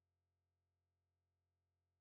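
Near silence: the sound track is essentially empty.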